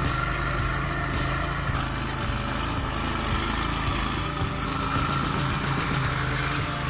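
Engine of heavy logging machinery running steadily at an even pitch.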